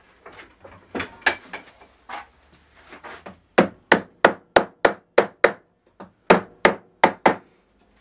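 Hammer knocking the lid down onto a sand-filled metal paint can: a few lighter taps and handling noise, then a run of sharp blows about three a second, a short pause, and four more blows.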